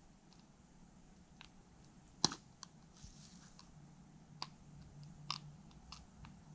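Scattered soft clicks and crackles of a plastic pouch of CV joint grease being squeezed into a CV axle joint's cup, with one sharper click about two seconds in.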